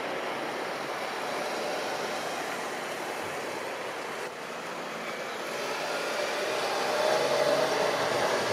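Embraer 170 jet on landing approach, its turbofan engines making a steady rushing noise that grows louder over the last few seconds as the plane comes closer.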